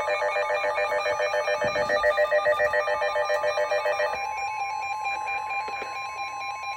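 Emergency alert tones from a NOAA Weather Radio broadcast: a fast-warbling, ringing pattern of several tones, which about four seconds in gives way to a single steady tone near 1 kHz, the weather-radio alert tone. The tones are garbled by a glitch in the broadcast.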